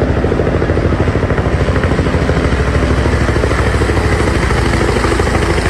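Electric RC helicopter (XK K170 UH-60L Black Hawk model) running steadily, its rotor blades chopping rapidly over the whine of the motor.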